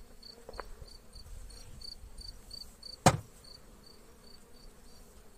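A cricket chirps in a rapid, steady series of short high chirps over the faint hum of honeybees around an open hive. There is a single sharp knock about three seconds in.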